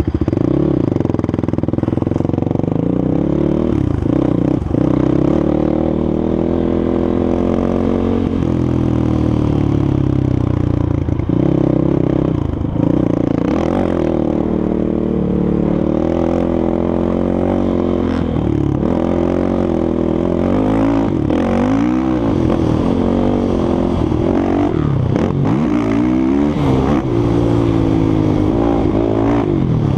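A 450cc single-cylinder four-stroke sport quad engine under hard riding. The revs climb and drop off again and again as the rider accelerates, shifts and backs off, with quicker rises and falls in the second half.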